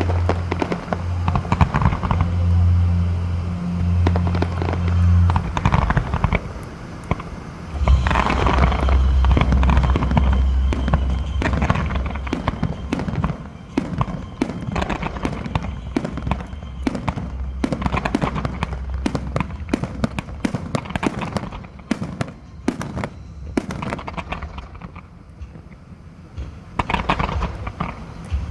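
Aerial fireworks bursting: a continuous run of bangs and crackles over a low rumble, heaviest about eight to twelve seconds in and thinning out near the end before picking up again.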